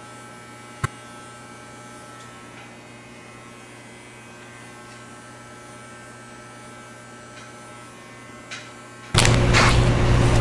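Corded electric hair clippers running with a steady buzz as they taper short hair at the nape, with a single sharp click about a second in. About nine seconds in, a much louder, rougher sound starts suddenly.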